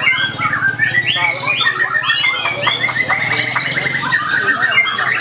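Caged lovebirds calling: fast, squawky chattering trills, overlapping without a break, over a low steady hum.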